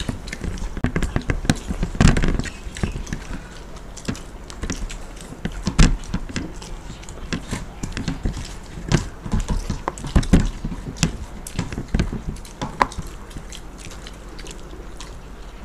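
Close-miked eating sounds: people chewing mouthfuls of chicken biryani with their mouths near a table microphone, and fingers picking the last rice grains off plates. Irregular small clicks and scrapes, with a few louder knocks, the strongest about two and six seconds in.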